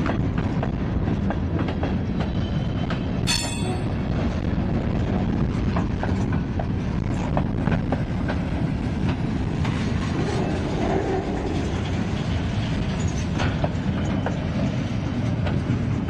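Freight cars (covered hoppers, then intermodal well cars) rolling past: a steady rumble of steel wheels on rail with irregular clicks over the rail joints, and a brief high wheel squeal about three seconds in.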